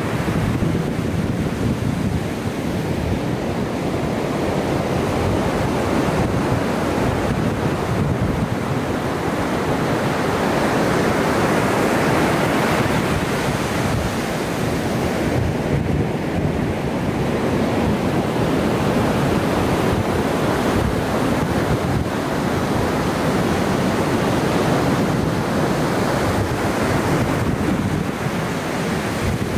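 Ocean surf breaking and washing up the beach in a continuous rushing wash that swells and eases, with wind buffeting the microphone.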